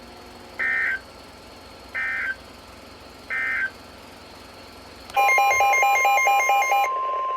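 NOAA Weather Radio alert signals. First come three short warbling bursts of digital SAME data, about 1.4 seconds apart: the end-of-message code closing the previous warning. About five seconds in, the steady 1050 Hz weather-radio warning alarm tone starts, with a fast pulsing beep over it for its first couple of seconds, announcing a new tornado warning.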